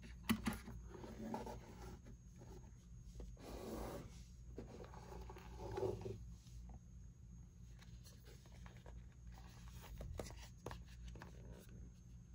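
Quiet rubbing and rustling with a few light clicks and taps, in short patches: hands handling a phone and its packaging.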